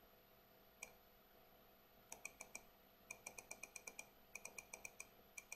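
Faint computer mouse-button clicks: a single click, then quick runs of several clicks at about eight a second, each with a small sharp ping.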